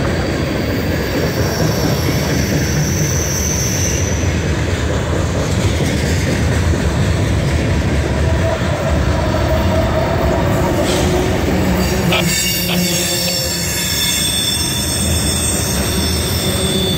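Freight train cars rolling past close by: a steady, loud rumble and clatter of steel wheels on the rails, with thin high wheel squeals, one about two seconds in and several more in the second half.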